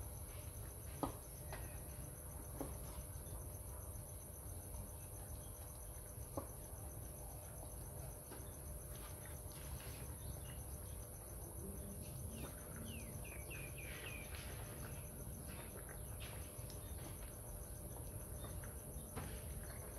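Steady high-pitched chorus of crickets, over a low steady rumble. A few sharp clicks come in the first third, and a short run of bird chirps with falling pitch comes about two-thirds through.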